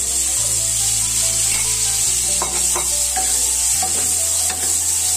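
Green peas sizzling in hot melted butter with browned garlic in a kadai, stirred with a wooden spatula. A steady frying hiss, with a few clicks of the spatula against the pan around the middle.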